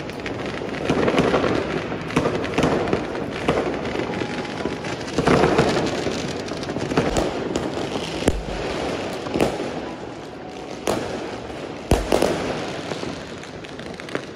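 Fireworks and firecrackers going off in many places at once: a steady dense crackle of overlapping bangs, with a few sharper, louder bangs standing out, two of them past the middle.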